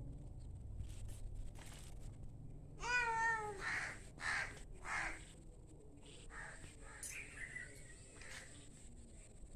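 A crow cawing three times in quick succession, harsh calls a little over half a second apart, just after a short, bending pitched call.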